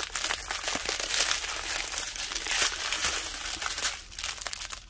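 Strips of small plastic bags filled with diamond-painting drills crinkling as they are handled and shifted about. The crinkling is dense and continuous, then eases off in the last second.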